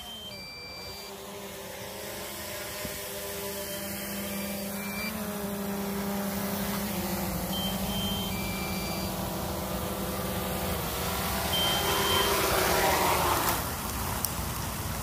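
DJI Mavic 2 Zoom quadcopter's propellers whirring as it descends and hovers low, growing louder as it comes in to land, with a swell of rushing air near the end. A few short electronic beeps sound now and then.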